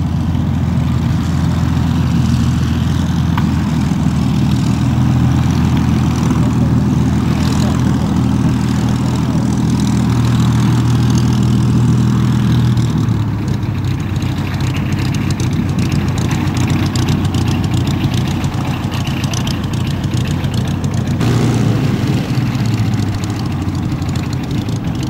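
Supermarine Spitfire's Rolls-Royce Merlin V12 engine running at low power as the fighter taxies, a steady deep propeller-engine drone. It eases off about 13 seconds in and briefly picks up again a little after 21 seconds.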